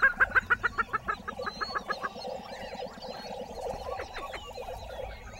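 Lesser prairie chickens calling on a lek. A rapid run of sharp notes, about seven a second, slows and fades out by about two seconds in. Under it and after it runs a steady chorus of lower booming calls from several males.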